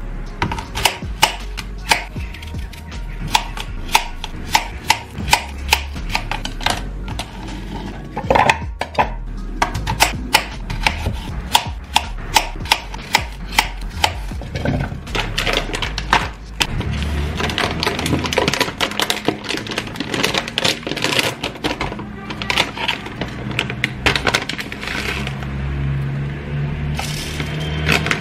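Knife chopping a green apple on a cutting board: sharp knocks about two a second, over background music.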